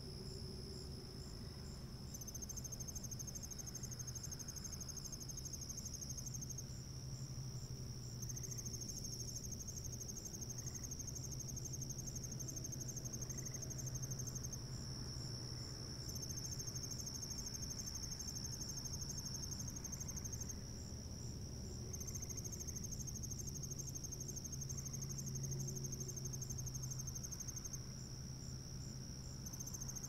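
Night insects, crickets among them, trilling in a steady high-pitched chorus, with separate callers dropping out and coming back every few seconds, one of them pulsing rapidly. A low steady hum runs underneath.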